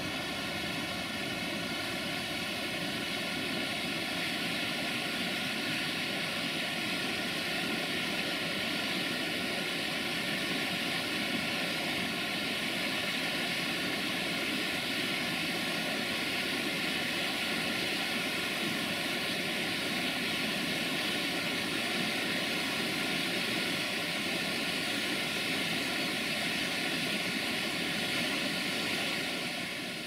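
Waterfall: a steady, unbroken rush of water falling down a rock face, dropping a little in level near the end.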